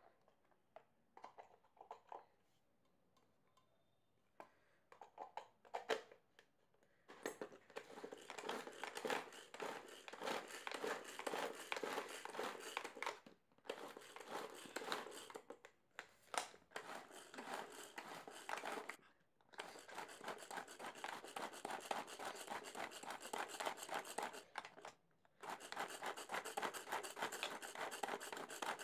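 Flipkart SmartBuy pull-cord mini chopper being worked: the cord is pulled and wound back again and again while the blades spin through chunks of onion and green chilli in the plastic bowl. It makes a rapid rasping whirr in long runs with a few short pauses, after a few light clicks as the lid is fitted at the start.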